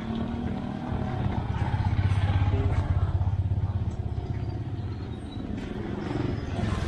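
A motor vehicle engine running close by, with a fast even pulse; it swells about a second in and eases off after about four seconds, as a vehicle passing.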